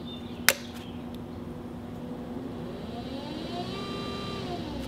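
Minn Kota Endura C2 trolling motor running in reverse through a PWM speed controller. After a click about half a second in, its whine rises in pitch from about two and a half seconds as the speed is turned up to full, then levels off near the end.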